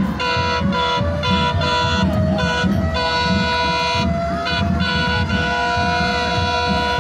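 Locomotive air horn of an arriving passenger train sounding a multi-note chord in repeated blasts with short breaks, over a low rumble.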